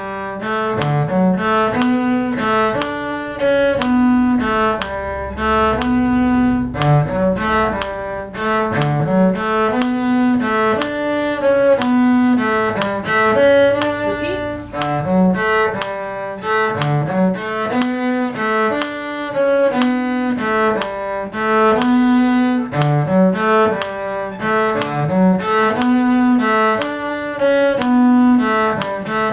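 Bowed string ensemble playing a lilting tune in six-eight time: a cello's low line moves under a higher part, in held, bowed notes.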